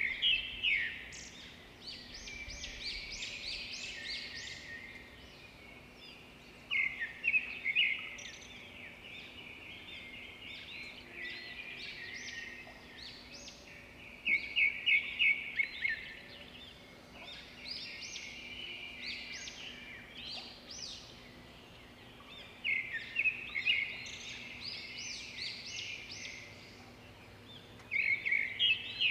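Small birds chirping and twittering, with a louder phrase of quick, high chirps every several seconds over quieter calls in between.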